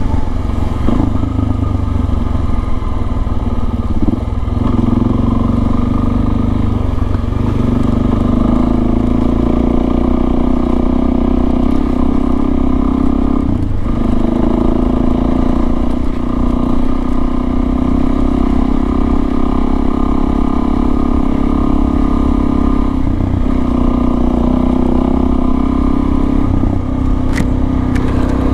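Suzuki DRZ400S single-cylinder four-stroke engine with an FMF PowerCore slip-on exhaust, running steadily under way with a low wind rumble. The drone dips briefly a few times, and there is a sharp click near the end.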